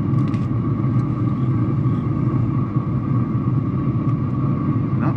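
Traeger 575 pellet smoker running with its lid open: a steady low rumble and whir with a faint whine, and a few light clicks near the start.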